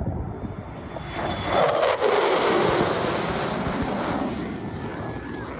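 Lockheed Martin F-35 fighter jet flying low past the listener. The jet roar swells about a second in and is loudest over the next couple of seconds, its pitch sliding down as it passes, then slowly fades.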